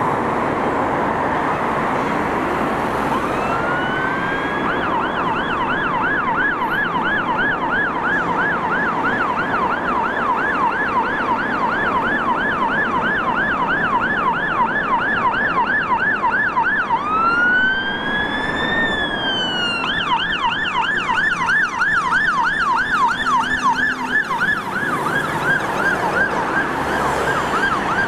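Fire engine's electronic siren on an emergency run, over city traffic noise. A few seconds in it rises into a fast yelp. About two-thirds through it changes to one slow rising-and-falling wail, then goes back to the fast yelp.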